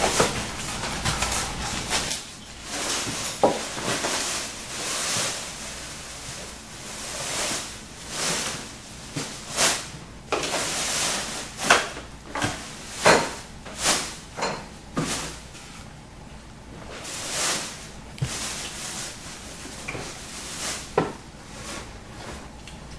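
Large clear plastic bag being pulled down off an office copier, rustling and crinkling in repeated swishes, with a few short knocks from styrofoam packing blocks and cardboard being handled.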